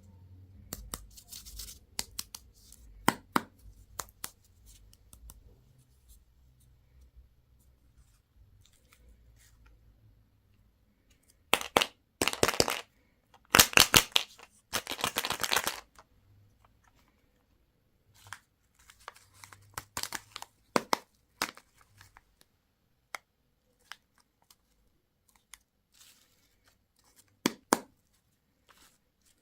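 Candy packaging being torn open and crinkled by hand, with scattered small clicks and taps. Three dense stretches of tearing fall about halfway through.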